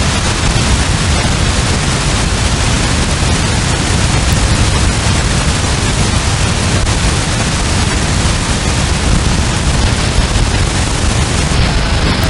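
Steady hiss of shortwave radio static from a software-defined radio receiver tuned across the HF bands. The uploader takes this noise for mysterious man-made interference. The noise changes slightly near the end as the receiver retunes.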